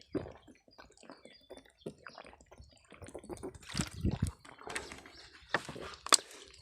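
Irregular crackles, snaps and rustles of twigs and leaves being handled, getting louder in the second half, with two sharp snaps about six seconds in.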